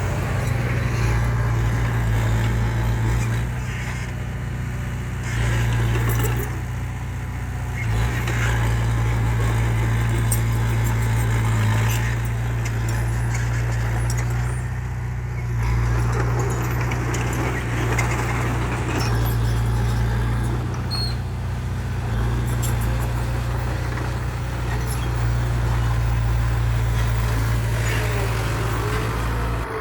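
Heavy diesel engine of earthmoving or dump-truck machinery running continuously, its level swelling and easing every few seconds as the load changes.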